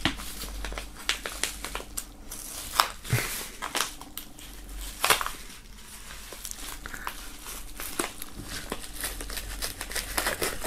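Black plastic bubble mailer crinkling and rustling in the hands as a knife cuts through its heavily taped seal, with irregular sharp crackles.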